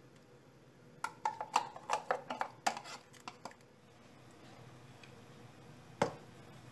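Metal teaspoon clinking against cups and the rim of a steel cooking pot: a quick run of about a dozen clinks, then a single sharper tap near the end.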